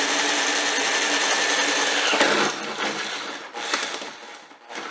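Makita 18V cordless drill spinning a long pilot bit through the pickup's sheet-metal roof: a steady motor whine that winds down in pitch about two seconds in, followed by quieter, uneven sound and a few clicks.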